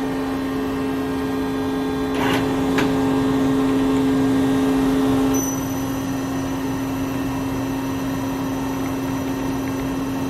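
Doosan Puma MX2500ST mill-turn center running with a steady machine hum. Two sharp clicks come a little after two seconds in. About halfway through, one of the hum's tones drops out and a faint high whine starts.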